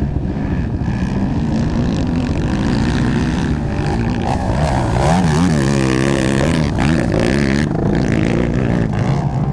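Racing ATV (quad) engines revving hard as two quads race past at close range. The engine pitch repeatedly rises and falls as the riders work the throttle, dipping and then climbing sharply about midway.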